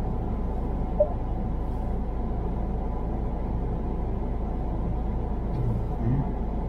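A car being driven, with a steady rumble of engine and road noise. A brief chirp sounds about a second in.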